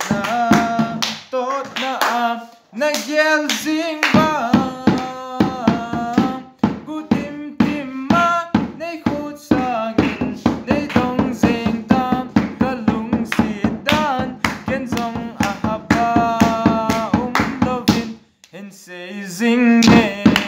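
A man singing a song while beating a small hand drum in a steady, quick rhythm, with a short break about eighteen seconds in.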